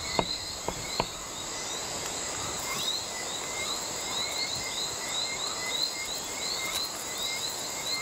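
Chorus of insects: a steady high-pitched drone under short rising chirps that repeat a few times a second, with a few faint clicks in the first second.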